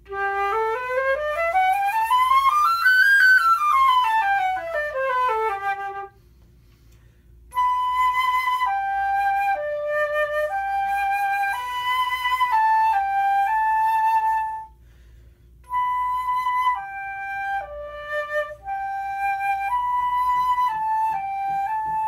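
Concert flute, a 14-karat gold Powell body with a Powell 19.5-karat gold headjoint, played solo. First a two-octave scale runs up and back down; then, after a short pause, come two slow phrases of held notes with a brief break between them. The player hears this headjoint as giving a fuller, bigger, darker, deeper and richer tone.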